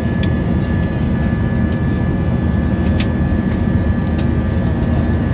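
Airbus A320 cabin noise during the climb after takeoff: the steady roar of the jet engines and rushing air, with a constant high engine whine over it. A few small clicks are heard, the clearest about three seconds in.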